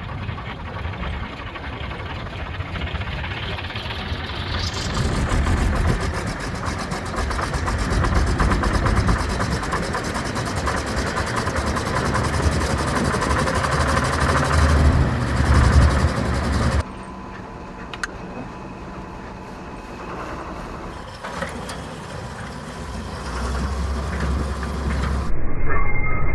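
1976 John Deere 6600 combine running, its six-cylinder diesel engine and threshing machinery making a steady mechanical din. The sound drops abruptly about 17 seconds in and changes again near the end.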